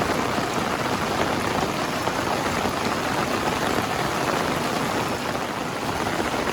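Steady rain falling, mixed with floodwater running across a road.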